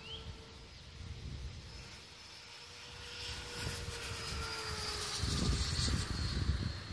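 Small airplane flying past, a steady engine drone that sinks slightly in pitch and grows louder in the second half, with wind rumbling on the microphone.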